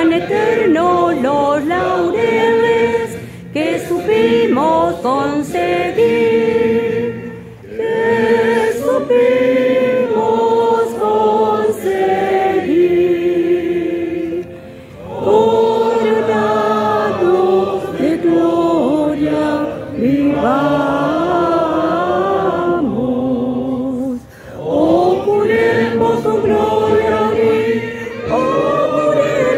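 A group of voices singing together like a choir, in long phrases with held notes and brief pauses between them.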